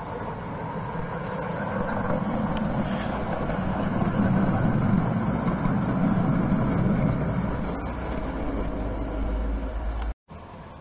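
Model steam-outline locomotive and goods wagons running on a garden railway: a steady rumble of wheels on rail joints and the electric motor. It builds to its loudest around the middle as the train passes, eases off, and cuts off abruptly about ten seconds in.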